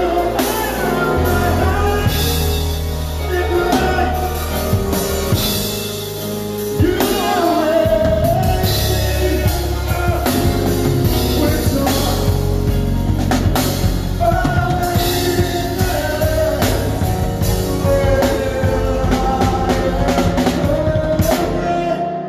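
A live band playing a worship song: drum kit, bass and guitar under a sung melody.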